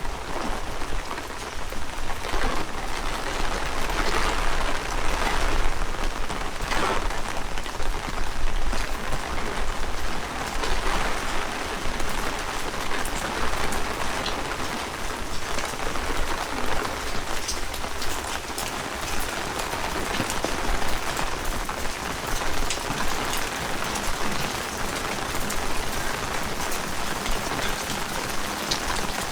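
Heavy rain falling steadily, with many individual drops ticking sharply and close, over a low rumble.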